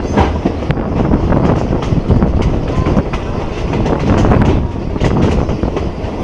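Passenger train running along the line, heard from a carriage window: a steady rumble and rush of air with the clickety-clack of wheels over the rail joints.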